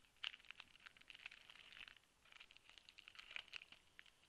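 Shiny wrapper of a trading-card pack crinkling as it is worked open by hand: a faint, dense run of small crackles, with a short lull about two seconds in.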